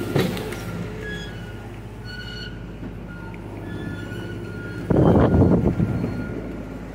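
John Deere mini excavator's diesel engine running steadily while its bucket works soil. There is a sharp knock right at the start, and about five seconds in comes a loud, rough rush of noise lasting about a second.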